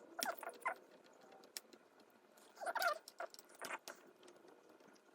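Faint clicks and a few short squeaks of plastic and metal parts being worked as a circuit board is pried out of the frame of a Toyota JBL touch-screen head unit.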